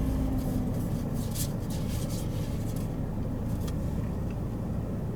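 Steady low rumble like a motor vehicle's engine heard from inside its cabin, with a few faint light ticks and rustles of trading cards being handled in the first couple of seconds.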